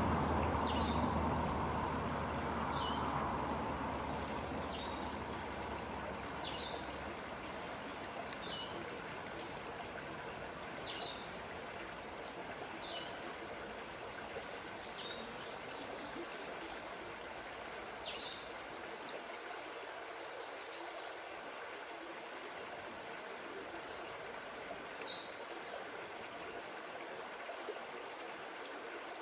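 Shallow creek water running steadily over rocks. A small bird gives short, high, falling chirps every couple of seconds, fewer toward the end. A low rumble at the start fades away over the first few seconds.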